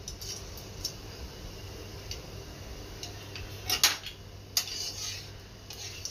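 Whole spices sizzling faintly in hot mustard oil in an aluminium kadai, with scattered sharp clicks of metal or popping spices, the loudest a close pair about four seconds in.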